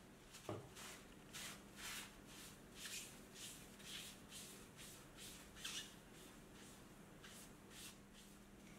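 Foam swab wiping cold blueing solution onto a steel die holder body: a series of soft rubbing strokes, roughly two a second, after a low knock about half a second in.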